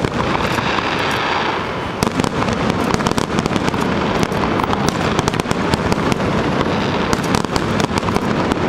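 Fireworks finale: a dense, continuous barrage of bangs and crackling pops with no break, and a rushing hiss over it for the first second and a half.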